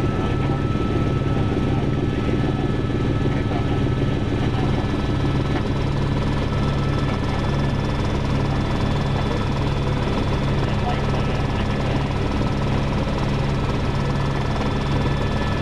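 Helicopter in flight: a steady, loud rotor beat with a constant high whine over it.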